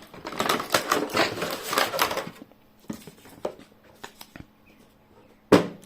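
Cardboard box and plastic packaging being opened and handled: a run of dense crackling rustles for about two seconds, then scattered light clicks and taps, with one short loud knock near the end.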